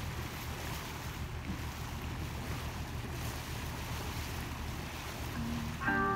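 Sailboat under way at sea: water washing along the hull and wind on the microphone over a steady low drone. A few music notes come in near the end.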